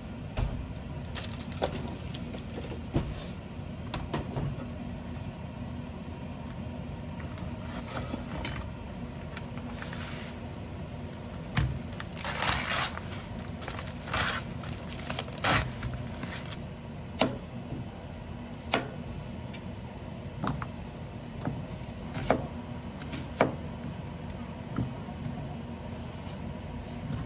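Irregular sharp clicks and knocks, a cluster of them about halfway through, over a steady low hum.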